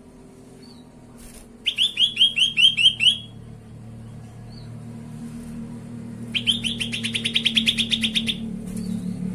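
Grey-bellied bulbul (cucak kelabu) calling. About two seconds in comes a run of about seven sharp, down-slurred notes, and from about six seconds in a faster rattling run of quick notes. A low steady hum lies underneath.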